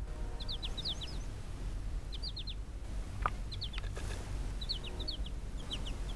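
A songbird singing: short phrases of three or four quick, falling high notes, repeated about every second, over a steady low rumble.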